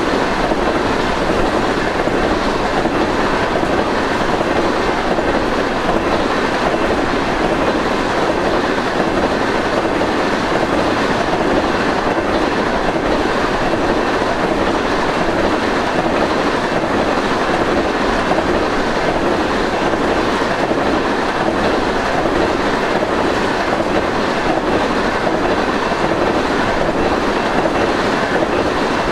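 Empty crude oil tank cars of a fast freight train rolling past, a steady loud rumble and rattle of steel wheels on the rails.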